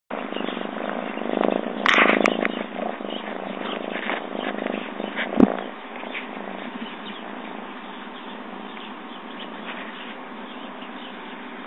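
A domestic cat purring right up against the phone, its fur rubbing and brushing over the microphone, louder in the first half. A single sharp knock about five and a half seconds in.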